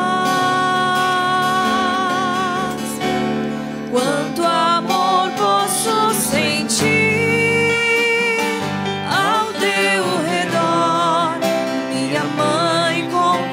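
Live Portuguese-language Marian worship song: a woman singing long held notes with vibrato and sliding pitch, over strummed acoustic guitar and keyboard.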